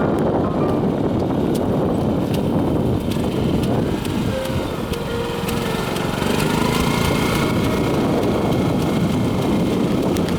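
Yanmar VP-40 rice transplanter running steadily, its engine noise carrying faint repeated clicks.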